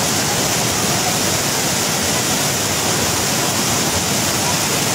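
Raging muddy floodwater rushing through a flash flood: a loud, steady, unbroken rushing noise.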